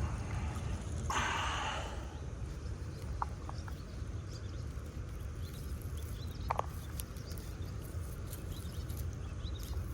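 Wind rumbling on the microphone, with a short hiss about a second in and a few brief, high chirps and a click scattered through it.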